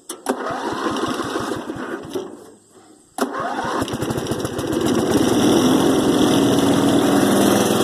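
Small Allis-Chalmers riding lawn mower engine turning over briefly and stopping, then starting on a second try about three seconds in and settling into a steady run.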